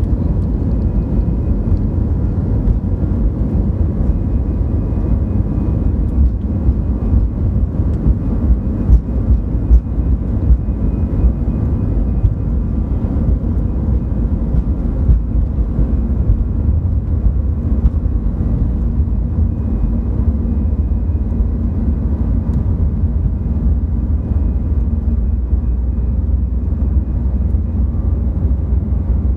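Airliner cabin noise as the plane rolls along the runway for takeoff: a loud, steady deep rumble of the jet engines and wheels, with a faint steady high whine above it.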